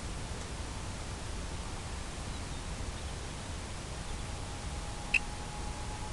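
Steady background hiss with a low rumble, a faint steady whine underneath, and one brief high chirp about five seconds in.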